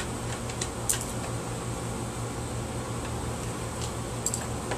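A steady low mechanical hum, with a few faint light clicks about a second in and again near the end.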